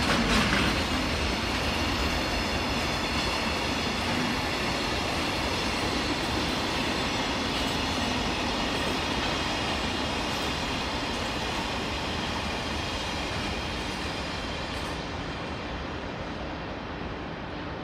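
Long freight train of container flat wagons rolling past with a steady rumble of wheels on rail, thin high ringing tones over it for the first several seconds. The sound slowly fades and dulls as the last wagons go by near the end.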